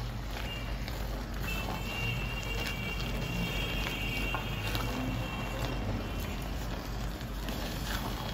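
Thick beans and plantain porridge being stirred in a metal pot with a silicone spatula: soft scraping and bubbling with a few light clicks, over a steady low hum.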